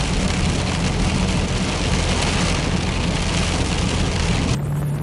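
Inside a car driving in heavy rain: a steady low engine and road hum, with the hiss of tyres on the wet road and rain on the windscreen. About four and a half seconds in, it cuts abruptly to music holding a low tone.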